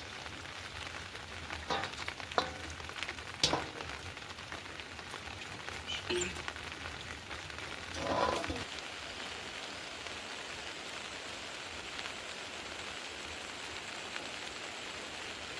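Heavy monsoon rain falling steadily on surfaces, an even hiss. A few sharp knocks come in the first few seconds, and a brief louder sound about eight seconds in.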